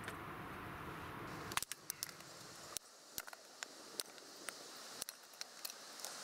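Freshly split firewood sticks clacking against each other and on the ground as kindling is tossed onto a pile: a string of sharp, irregular wooden knocks through the latter part. Before them, a steady rushing noise cuts off suddenly about a second and a half in.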